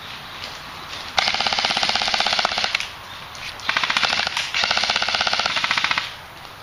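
Airsoft automatic rifle firing on full auto: a rapid clatter of shots in two long bursts, the first starting about a second in and the second running through the middle, with a brief break.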